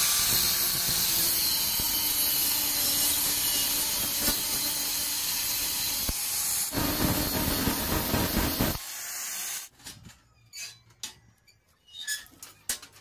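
Angle grinder with a thin abrasive cut-off disc spinning up with a rising whine and cutting into a rusty steel bar, a loud, steady hissing grind. About halfway through the grind turns heavier, then the grinder stops suddenly about two-thirds of the way in, leaving a few faint knocks.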